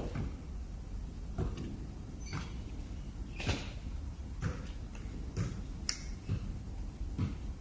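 Light knocks and clicks, about one a second, from handling heavy fire extinguishers hung on a bonded silicone tube O-ring loop, the loudest about halfway through, over a steady low factory hum.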